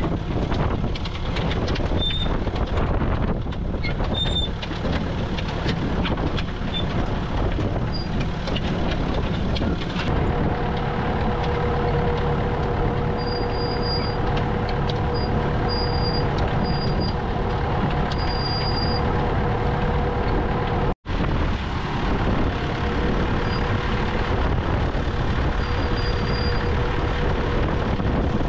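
Vintage Massey Ferguson tractor engine running steadily as it pulls a ground-wheel-driven Massey Ferguson 718 automatic potato planter, with clicks and rattles from the planter's metal works. A steady hum sets in about a third of the way in, and a few short high beeps come and go near the middle. The sound cuts out for an instant about two-thirds of the way through.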